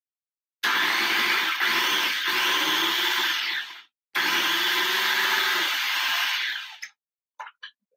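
Electric blender running in two bursts of about three seconds each, with a short stop between, whizzing an herb dressing of parsley, cilantro, garlic and apple cider vinegar.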